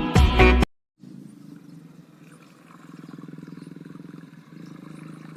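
Background music cuts off, then a steady low buzzing drone from the RC boat's two brushless (BLDC) motors running, growing a little louder about three seconds in.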